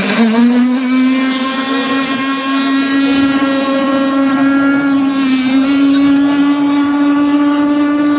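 OS Max 50SX Hyper Ring two-stroke glow engine of a radio-controlled mono-hull boat running flat out across the water, a steady whine. The pitch climbs back up just after the start and sags slightly about five seconds in.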